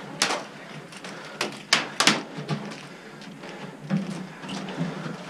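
Airsoft gunfire: sharp snapping cracks, one about a quarter-second in and a quick cluster of four between one and a half and two seconds in, followed by fainter clicks.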